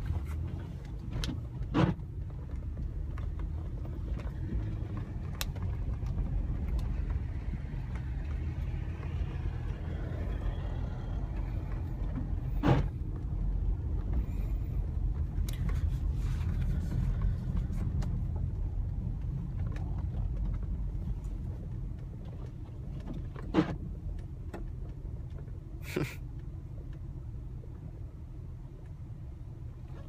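Cabin noise of an almost 20-year-old Honda car driving through snow: a steady low engine and road rumble that swells through the middle, with a handful of short, sharp clicks.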